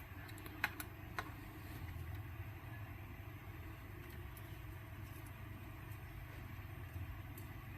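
Faint steady low hum, with a few light clicks in the first second or so.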